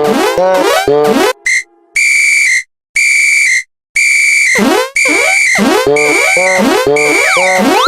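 Electronically altered Japanese railroad crossing warning sound. A high, steady beep repeats about once a second, alternating with quick warbling chirps that sweep up and down in pitch, after a fast run of gliding chirps at the start.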